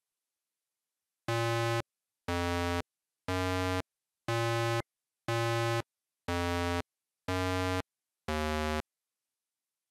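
Eight identical short 8-bit synthesizer tones at one steady pitch, about one a second, each lasting about half a second, after a second of silence.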